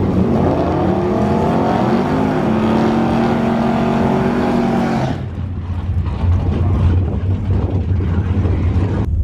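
C5 Chevrolet Corvette's V8 revved up and held high during a burnout, rear tyres spinning and smoking; the revs drop off sharply about five seconds in, and the engine then runs low and rough as the car rolls forward.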